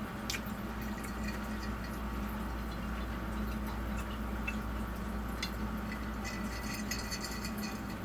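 Faint wet mouth sounds of someone chewing food, with scattered small clicks that come more often in the second half, over a steady low hum.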